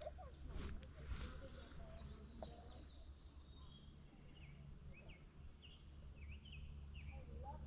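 Birds chirping and singing faintly, many short rising and falling calls overlapping throughout, over a steady low rumble of wind or moving water, with two brief swishes about half a second and a second in.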